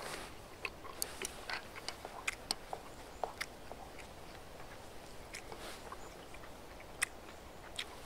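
A person chewing mouthfuls of stir-fried spicy pork wrapped in fresh vegetable leaves, close to the microphone. There are many short, sharp mouth clicks and smacks at an irregular pace.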